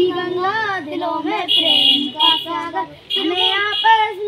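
A child singing a prayer in a sing-song melody, with a brief break about three seconds in.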